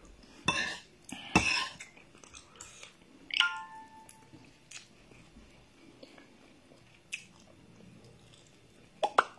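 Eating sounds: chewing and mouth noises over scattered sharp clicks of cutlery against a plate. About three and a half seconds in, one clink rings briefly, and a quick pair of clicks comes near the end.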